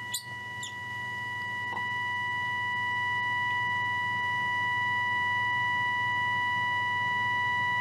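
Steady test tone from a Philips 206A valve radio's loudspeaker, reproducing the signal generator's modulated 473 kHz IF signal. It grows gradually louder as the IF transformer slug is tuned toward its peak, the sign of the IF stage coming into alignment.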